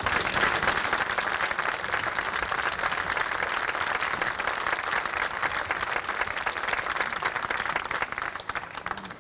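Audience applauding, a dense even clapping that dies away near the end.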